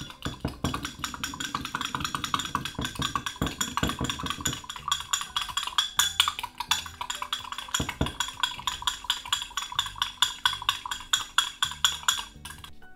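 Metal fork clinking quickly and steadily against a glass mug while stirring a runny batter, stopping about half a second before the end. Background music plays underneath.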